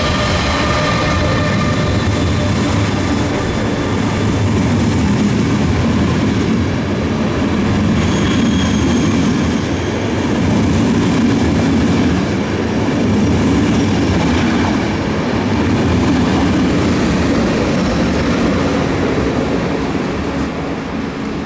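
EC 216 Eurocity passenger train rolling past at close range: a steady, loud rumble of wheels on rail. A few high thin tones fade out over the first couple of seconds, and the sound eases off near the end.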